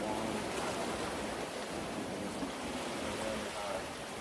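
Steady rush of surf and moving water, with faint distant voices.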